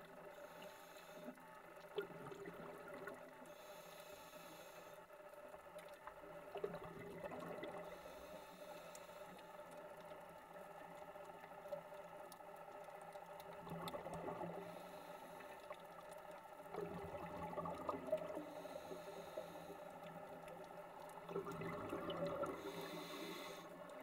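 Scuba regulator breathing heard underwater, faint: every few seconds a hiss of inhaling through the regulator alternates with a burst of exhaled bubbles.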